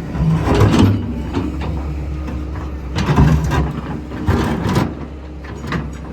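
Excavator diesel engine running steadily under three bouts of scraping and clanking as it works concrete demolition debris: about half a second in, around three seconds, and around four and a half seconds.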